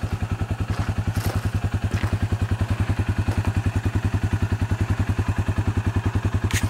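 Side-by-side UTV engine idling with a steady, even pulsing beat, about ten pulses a second.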